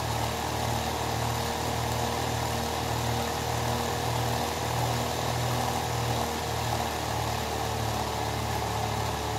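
Small 3 V DC motor spinning a 3D-printed single-phase generator's flywheel, a steady whir with a constant tone and a slow, regular throb a little more than once a second, as the flywheel builds up speed and charges the capacitor.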